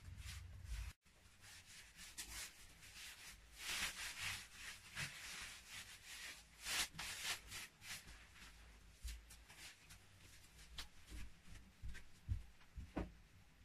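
Hands rubbing and smoothing a clay-plastered surface: a few brief scraping swishes, the strongest about four and seven seconds in, with light ticks and knocks later.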